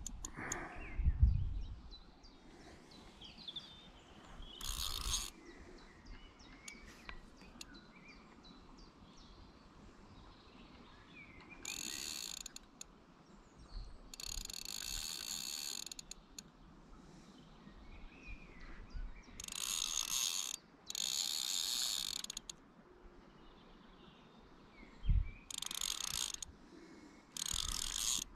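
Fixed-spool fishing reel ratcheting in short bursts, about seven times, each a second or two of rapid, even clicking, with faint birdsong between.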